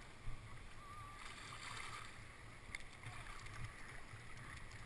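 Faint rushing of river whitewater, with a sharp knock about a third of a second in and a few faint clicks.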